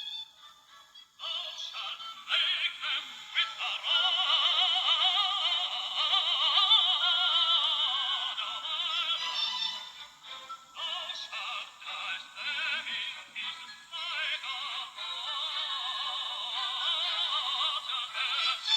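Background music with a singing voice, thin and lacking any bass, starting about a second in after a brief quiet moment.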